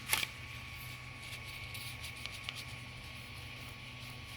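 Ender 3 Pro 3D printer sitting powered with its fans running: a steady hum with a constant whine. A brief sharp scrape comes right at the start, then a few faint ticks, typical of hand adjustment during bed levelling.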